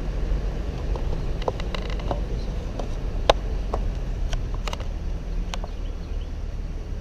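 Car driving, heard from inside the cabin: a steady low road rumble with scattered light clicks and ticks, one sharper click about three seconds in.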